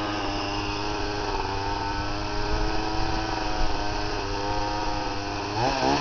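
Chainsaw engine running steadily at a constant speed. A voice is heard briefly near the end.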